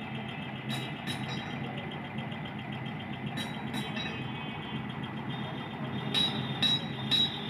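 Steady low mechanical hum with a faint steady high tone and a few scattered clicks.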